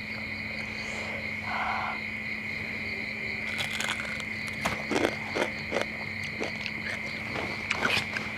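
Night crickets chirping in a steady high trill, with a low steady drone beneath. From about three and a half seconds in come irregular crisp crunches of a girl biting and chewing crispy deep-fried frog.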